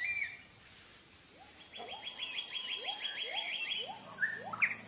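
Tropical forest birds calling: a quick run of high repeated notes about a third of the way in, over a string of short rising whistled notes about twice a second, with a few sharper calls near the end.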